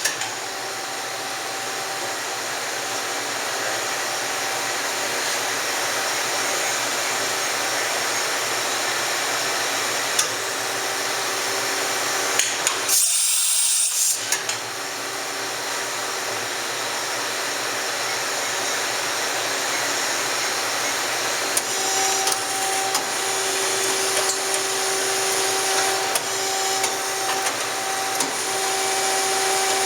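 Kitamura Mycenter 4 CNC vertical machining center running under power: a steady whirring hiss with a faint hum that grows stronger in the second half. About halfway through, a short high-pitched hiss lasts a second or so.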